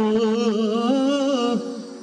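A man singing one long, wavering, ornamented note into a microphone, Turkish folk style, which trails off about one and a half seconds in.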